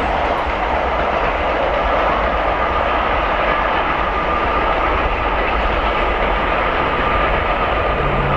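LMS Black 5 steam locomotive and its support coach running away along the main line: a steady rolling rumble of wheels on rail.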